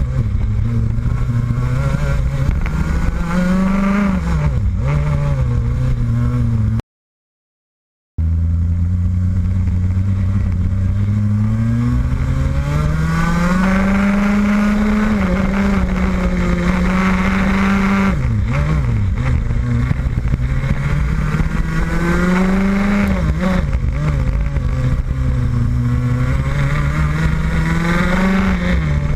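Rotax Max 125cc two-stroke kart engine at racing speed, its pitch climbing on the straights and dropping off into the corners. The sound cuts out completely for about a second near a quarter of the way through, then picks up again low and climbs.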